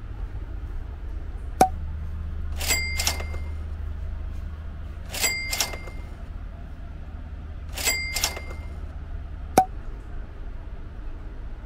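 A ship's public-address system clicks on, rings a chime three times, each a quick pair of ringing notes, then clicks off, over the steady low drone of the ferry's engines.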